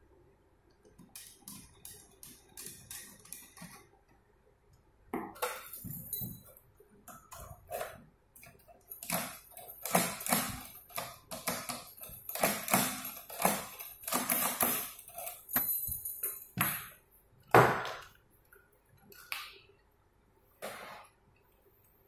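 Metal clicks, clinks and knocks of a mortise door lock body and its cylinder being screwed in and handled. A run of light quick clicks gives way to a dense stretch of taps and clinks, with one louder knock about three-quarters of the way through.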